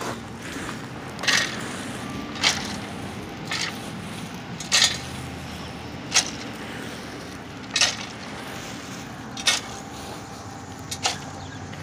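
Hand scraping and scooping into wood-chip mulch and dirt, digging a hole: about eight short crunching rustles, one every second or so.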